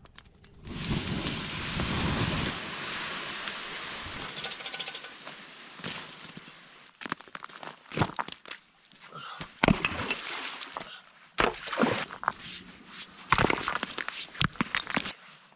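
Camp gear being handled and packed up: a few seconds of continuous rustling, then a run of irregular knocks, snaps and crunches.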